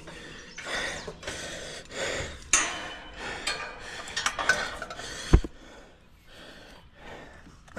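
A tower climber breathing hard, in several heavy breaths, with the clink and rub of metal climbing hardware on the steel tower. There is one sharp metal click a little over five seconds in, and it goes quieter after that.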